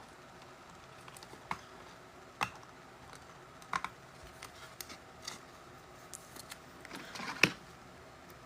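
Trading cards and packs handled on a table: scattered light clicks and taps, with a brief rustle and one sharper snap near the end.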